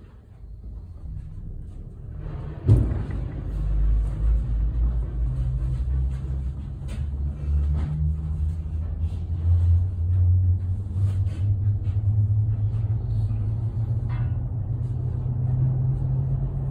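Aerial tram cabin setting off down from the summit station: a sharp clunk as it starts moving, then a steady low rumble and hum of the carriage running along the track cables, heard from inside the cabin.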